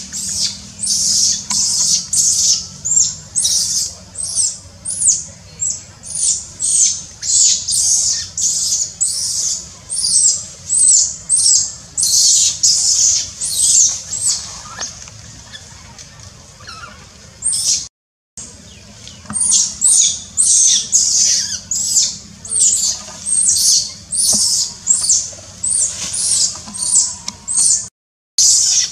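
Baby macaque screaming in distress at its mother's bites: a long run of shrill, high-pitched squeals, each falling in pitch, about two a second. The squeals ease off for a moment past the middle and break off completely twice for an instant.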